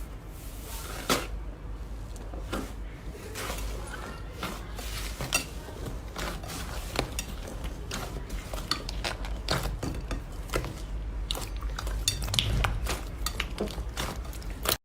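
Slime being worked by hand: a dense, irregular run of sharp wet clicks and pops.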